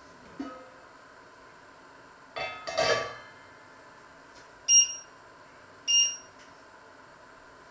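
A stainless steel pot lid clatters and rattles as it is set down on a grill pan on the hob. Then the electric hob's touch controls beep twice, a little over a second apart, as its setting is changed.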